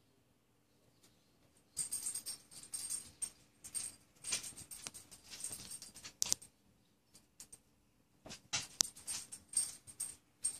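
A dog's metal collar tags jingling and clinking as it moves about, in two spells, the second near the end.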